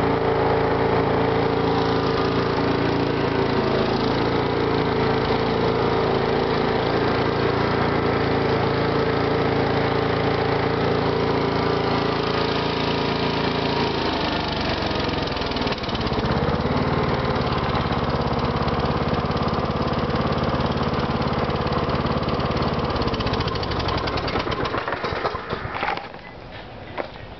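Riding lawn mower engine running steadily. Its sound changes about halfway through as a control is worked, and near the end it winds down and stops.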